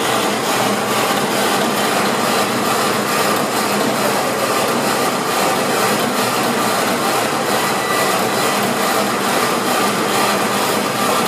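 Portable line boring machine running steadily, a continuous mechanical noise with faint regular pulsing.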